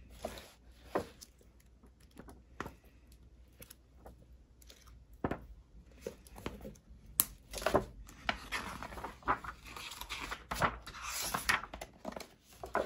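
Glossy pages of a large-format illustrated album being turned by hand: crisp paper rustles and flicks, scattered at first and more continuous in the second half.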